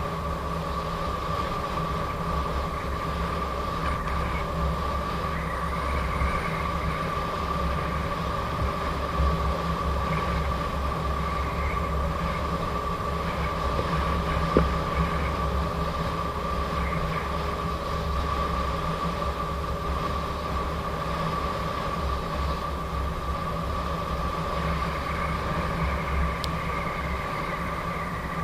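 Gotway MSP electric unicycle's hub motor whining at a steady pitch while cruising, with wind buffeting the microphone. A single sharp click about halfway through.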